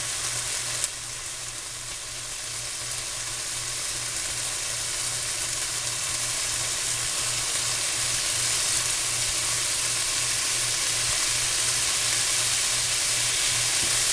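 Chicken breast tenders searing in a pan on high heat, a steady sizzle as their juices cook away. A short knock comes about a second in, and the sizzle then grows steadily louder.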